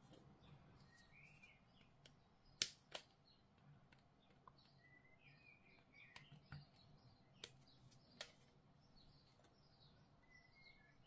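Hobby flush cutters snipping plastic miniature parts off a sprue: two sharp clicks about a third of a second apart, then two more a few seconds later, over near silence. Faint bird chirps in the background.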